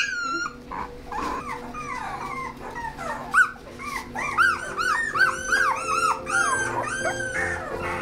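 16-day-old Australian Shepherd puppies whining and squealing in a quick run of short, high, arching cries, thickest in the second half at about three a second. Background music with held tones plays underneath.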